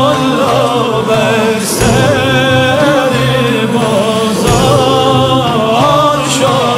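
Sufi dhikr chant: a male solo voice sings a wavering melody over a chorus of men and a steady low accompaniment, with a heavy accent about every three seconds.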